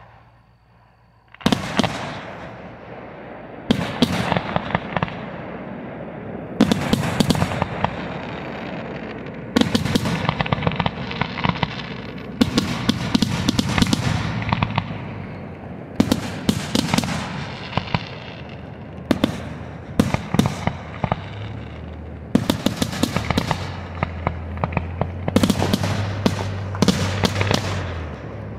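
Aerial firework shells bursting one after another, starting about a second and a half in, a new bang every one to three seconds, with clusters of quick sharp reports near the end.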